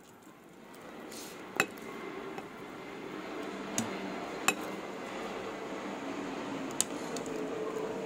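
Ceramic dishes and a metal spoon clinking: four sharp clinks spread over several seconds, the first and third the loudest, over a steady background noise that grows louder in the first seconds.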